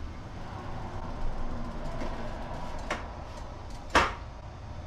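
Steady low rumble with two sharp knocks, one about three seconds in and a louder one a second later: metal parts of a stainless steel steam juicer clanking as it is set back in place on the stove.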